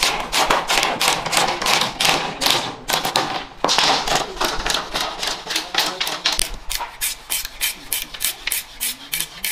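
A curved chopper blade splitting and shaving bamboo strips: a fast run of crisp cracking scrapes, about five a second, with one longer rasping stroke a little under four seconds in.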